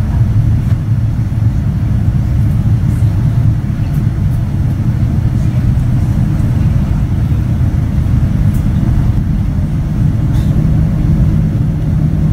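Steady low rumble of a Boeing 787-9's engines and airflow heard inside the cabin during the descent to landing, with a low hum that steps up slightly in pitch about ten seconds in.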